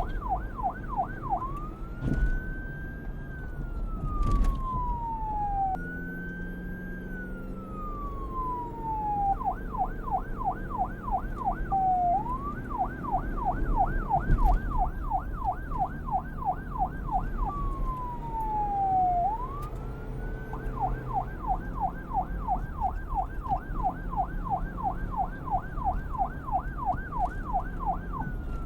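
Police car electronic siren switching back and forth between the fast yelp and the slower rising-and-falling wail, over a steady low rumble.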